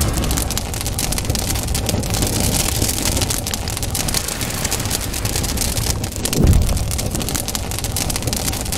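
Fire-like sound effects for an animated logo intro: dense crackling over a low rumble, with a deeper swell about six and a half seconds in.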